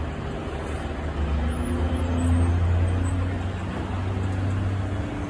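Road traffic with trucks and cars going by: a low, steady engine rumble from heavy vehicles that swells a little about two seconds in.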